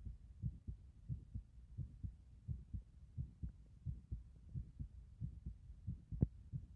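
A human heartbeat, a steady run of low thumps at about one and a half beats a second, with a sharper knock about six seconds in.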